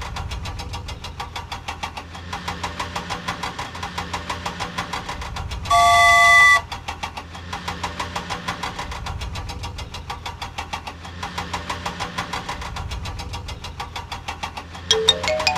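Cartoon vehicle engine sound effect: a steady chugging run of fast knocks over a low hum. About six seconds in, a single horn honk sounds for under a second, and near the end a rising run of chime-like tones begins.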